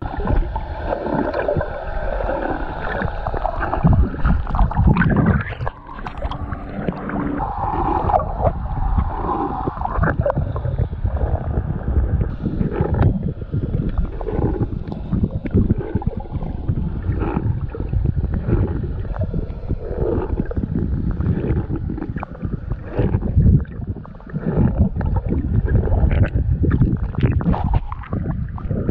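Action camera in a waterproof housing moving underwater and along the lake surface: muffled sloshing and gurgling of water with constant irregular splashes and knocks.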